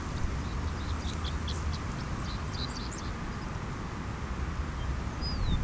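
Steady low rumble of a Boeing 787-9 jet slowing on its landing rollout, heard from far off. Birds chirp over it several times in the first half, and one gives a falling whistle near the end.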